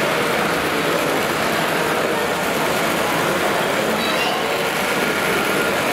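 Steady din of a busy exhibition hall: background chatter mixed with the running rattle of model trains on tinplate track.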